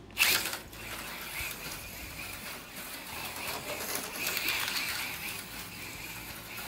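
HO-scale slot car running around the track: a steady buzzing whine of its small electric motor with the rattle of its pickup shoes and guide pin in the slot, rising and falling in level, after a sharp loud sound just after the start.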